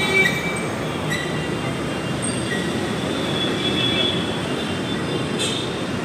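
Steady street traffic noise.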